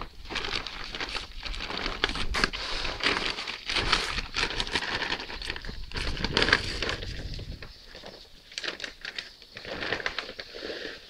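A plastic sack of caustic soda and the thin plastic bag inside it crinkling and rustling as they are handled, a rapid run of crackles. It is loudest for the first seven seconds or so, then softer.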